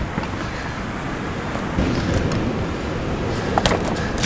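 Steady low rumble of wind and sea wash on a rocky shore, with a few light handling knocks near the end.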